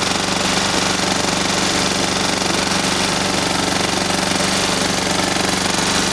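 TG2700 portable generator's petrol engine running steadily at constant speed with a rapid, even firing beat, fed from a home-made prototype fuel-saving tank through its carburettor.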